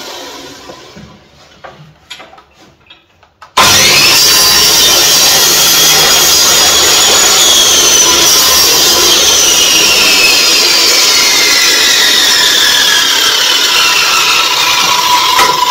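Electric miter saw switched on, a few light clicks of handling first, then the motor and blade starting suddenly and whining up to speed. The whine holds, then sinks slowly in pitch over several seconds while staying loud.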